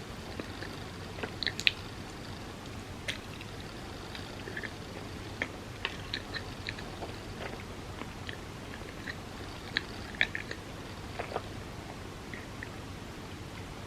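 Close-miked chewing of a bagel spread with cream cheese: scattered soft, wet mouth clicks and smacks over a steady faint hiss.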